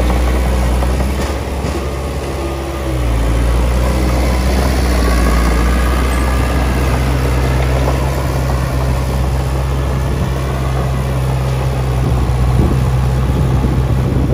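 Komatsu D20P bulldozer's diesel engine running steadily, its note shifting about three seconds in.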